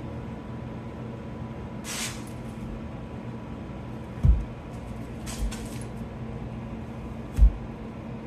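Brick pavers being set by hand into a bed of mortar: a few dull low thumps as bricks are placed and pressed down, and a couple of short scrapes, over a steady low hum.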